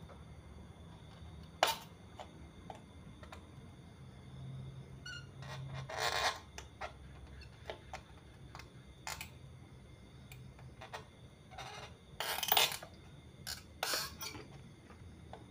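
Scattered small clicks and a few brief scraping noises from hand work on a CRT TV's circuit board while a diode is desoldered with a soldering iron, the loudest about six and twelve and a half seconds in, over a faint steady hum.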